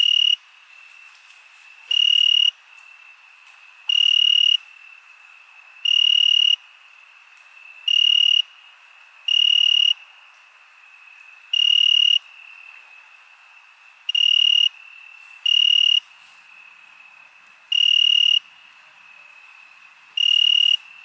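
Crickets chirping: one loud, high-pitched chirp about half a second long repeats roughly every two seconds, over a steady, fainter trill from other crickets.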